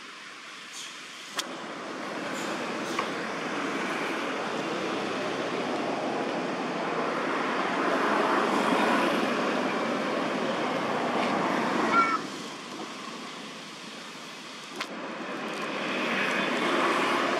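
Traffic noise from passing road vehicles: an even rush that builds up over several seconds, falls away, then builds again near the end.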